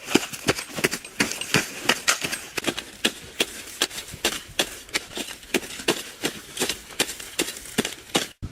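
A quick, steady run of sharp knocks, about four a second, like a hand tool striking earth or stone over and over.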